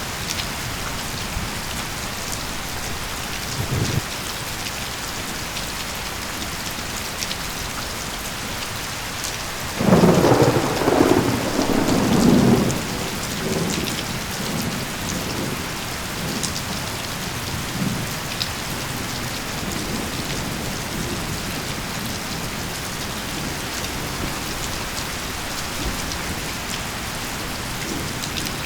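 Steady rain falling, with scattered sharp drop taps. A brief low thump about four seconds in, then a loud rumble of thunder about ten seconds in that rolls for around three seconds before fading.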